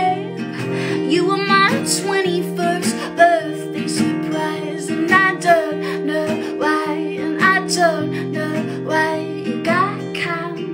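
A woman singing over a strummed acoustic guitar.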